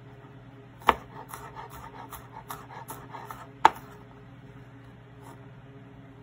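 Chef's knife chopping garlic on a plastic cutting board: a run of quick, light chops, with two sharp knocks of the blade on the board about a second in and just before four seconds in. The chopping stops after that.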